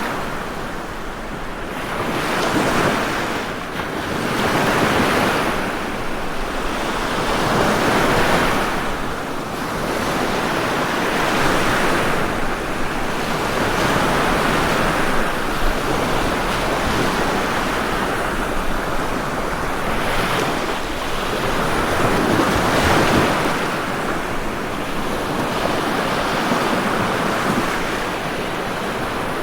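Ocean waves breaking on a shore, a continuous wash of surf that swells and fades every few seconds.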